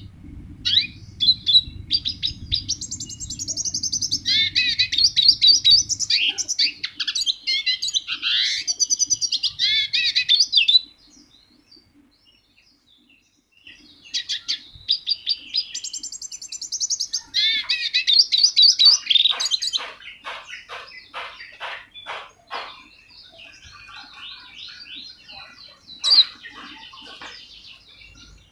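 A songbird singing loud, varied, warbling phrases: one long phrase of about ten seconds, a short pause, then another of about six seconds that ends in a quick run of sharp repeated notes, followed by softer calls.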